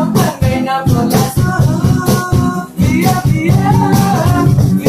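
Acoustic guitars strummed under male voices singing a Vietnamese pop song, with a hand shaker keeping the rhythm.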